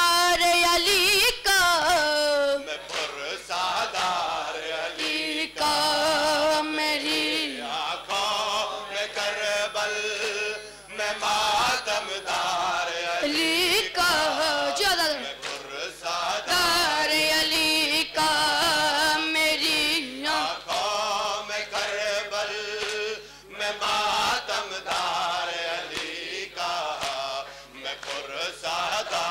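A boy's voice chanting a nawha, a Shia lament in Urdu, through a microphone in a long, ornamented melodic line with held notes. Sharp slaps of matam, chest-beating, mark the beat.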